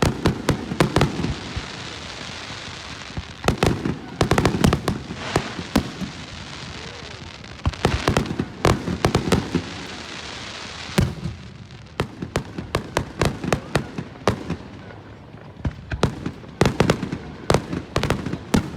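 Fireworks display: clusters of rapid sharp bangs in volleys, about five bursts of them, with a hiss between the volleys in the first half.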